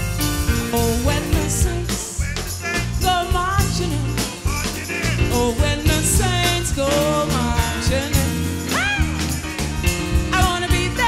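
Music: a wavering lead melody over a steady bass and beat, with one big rising-and-falling swooping note about nine seconds in.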